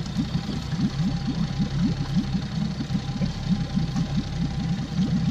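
Mercury outboard motor idling steadily with its lower unit in a tub of water, as when it is run for flushing the cooling circuit. It has an even pulsing of about four beats a second.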